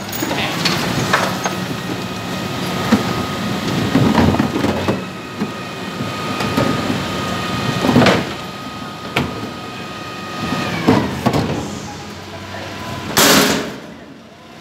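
Hydraulic Terberg bin lift on a Dennis refuse truck tipping and emptying a wheelie bin: a steady whine with bangs and clatter of the bin and its rubbish, over the truck's running engine. A short loud hiss comes near the end.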